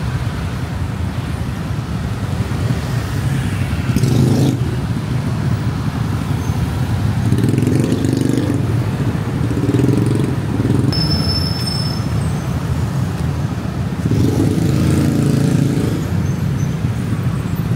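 City road traffic: cars and motorcycles running past with steady engine and road noise, engines swelling louder a few times, and a short sharp noise about four seconds in.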